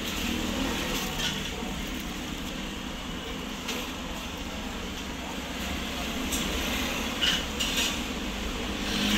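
Street-side traffic hum with a handful of short metallic clinks and scrapes, like utensils on a pan or tray.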